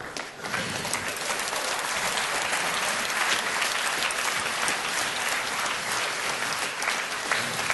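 Audience applause: many hands clapping together, swelling up about half a second in and then holding steady.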